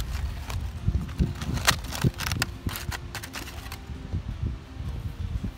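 Aluminium foil crinkling and crackling, with plastic cutlery scraping and clicking, as a roasted whole chicken is cut apart in its foil wrap. The crackles are busiest in the first few seconds, over a low rumble of wind on the microphone.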